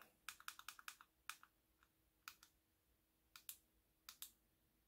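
Faint clicking of the small push-buttons on a Floppy Emu disk emulator: a quick run of five or six clicks, then single and paired clicks about once a second, as its menu is stepped through to choose a disk image.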